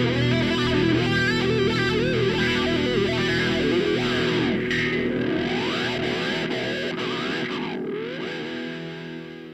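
Background rock music led by a distorted electric guitar, with sliding pitch bends in the second half, fading out near the end.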